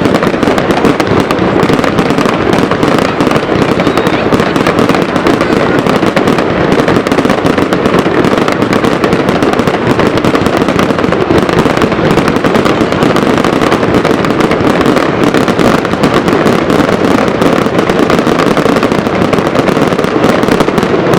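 Dense, continuous barrage of fireworks: many overlapping bangs and crackles with no let-up.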